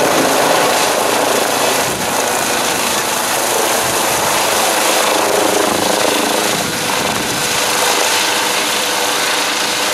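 Eurocopter EC135 twin-turbine helicopter flying directly overhead: loud, steady rotor and turbine noise.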